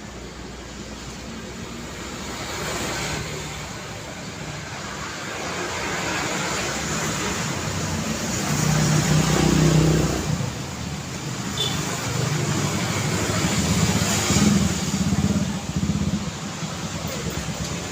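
Road traffic: motor vehicles passing one after another with engines running over steady tyre and road noise. The loudest pass comes about nine seconds in, and another swells around fourteen seconds.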